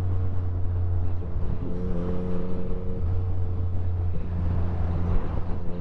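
Motorcycle engine running at a steady cruise under road and wind noise, its pitch shifting slightly a couple of times.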